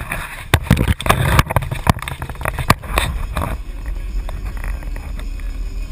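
Straight-piped Dodge Ram 2500 Cummins turbo-diesel running at cruise, heard from inside the cab as a steady low exhaust drone. A louder rushing, crackling noise with sharp spikes lies over it for about the first three and a half seconds, then only the drone goes on.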